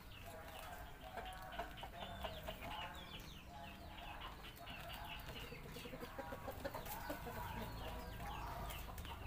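Chickens clucking, with many short high chirps running on through, over a steady low rumble.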